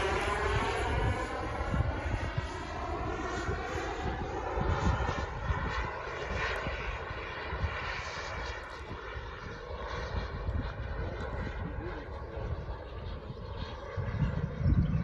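Kingtech K100 micro jet turbine of a model Scorpion sports jet flying overhead: a steady whine-and-rush whose tone slowly sweeps and phases as the jet crosses the sky, fading gradually. Wind buffets the microphone as a low rumble that grows near the end.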